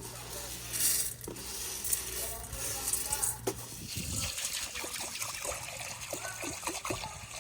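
Water running or being poured, with a steady hiss, and light clicks and knocks of kitchenware through the second half.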